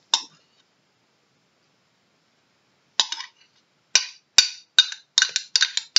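Spoon clinking and knocking against a measuring cup and bowl while thick PVA glue is scraped out: one short click, a pause of a few seconds, then a run of sharp clinks coming quicker toward the end.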